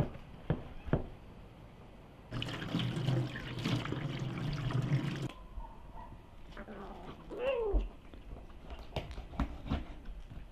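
A knife chops through raw chicken on a wooden board with three sharp knocks. Then comes about three seconds of pouring, splashing water. A little later a cat meows once, with a single rising-then-falling call, among a few light clicks and taps.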